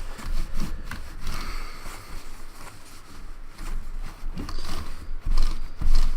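Paper towels crinkling and rubbing, with irregular low thumps of things knocked on a desk, as a mishap with the cleaning alcohol is mopped up.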